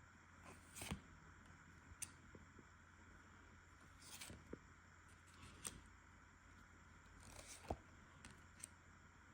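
Faint rustling and a few soft clicks of Pokémon trading cards and booster-pack wrappers being handled, over a steady low hum.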